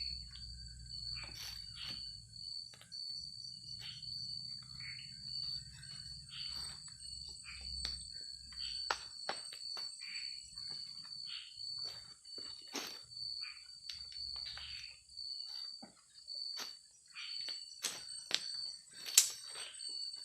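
Steady high-pitched chorus of forest insects, with scattered light clicks and rustles and one sharper click near the end.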